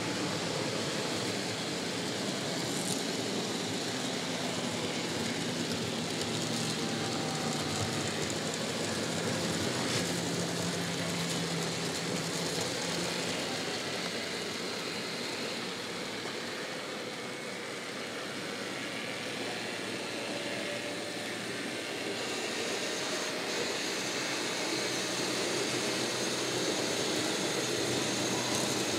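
N gauge model trains running on the layout: a steady whirring of small electric locomotive motors and wheels on the track, with a faint low hum coming and going.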